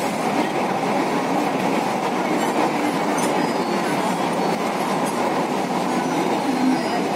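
Kochi Metro train running at speed on its elevated track, heard from inside the car: a steady rumble of wheels on rail and car noise.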